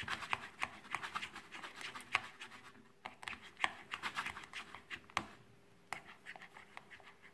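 Silicone spatula stirring an egg yolk and banana mixture in a small glass bowl: rapid scraping and clicking against the glass, pausing briefly a little under three seconds in, then sparser strokes that thin out near the end.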